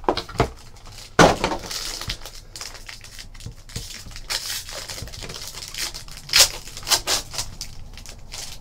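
A 2015 Topps Strata baseball card box torn open by hand, then a foil card pack ripped open, its wrapper crinkling and rustling as the cards are pulled out. Irregular rips and crinkles, the sharpest about a second in.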